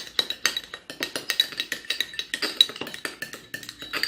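A utensil clinking and scraping quickly and irregularly against a bowl as glue and tempera slime mixture is stirred, each knock giving a short ring.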